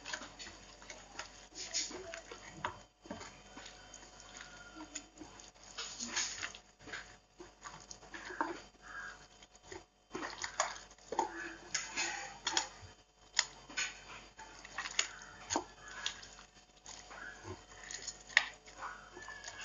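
Chicken pieces being mixed by hand in a thick yogurt-and-spice marinade in a steel bowl: irregular wet squelching and slapping, with now and then a sharp knock of meat or fingers against the bowl.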